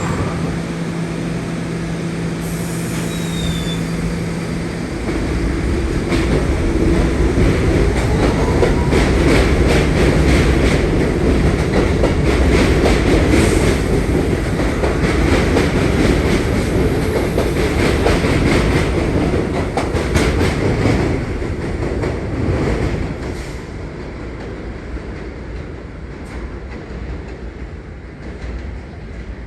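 New York City subway train running through, its wheels clacking rapidly over rail joints. The sound swells after about six seconds, stays loud through the middle, then dies away over the last several seconds.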